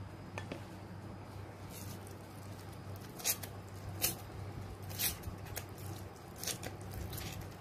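Hands scooping wet rice stuffing and pressing it into a hollowed-out eggplant: a handful of brief, soft squelches and clicks over a low steady hum.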